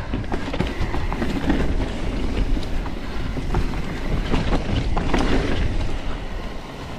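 Foes Mixer mountain bike descending a rocky dirt trail: a steady clatter of many small knocks and rattles as the tyres, chain and frame hit rocks and bumps, over a continuous low rumble.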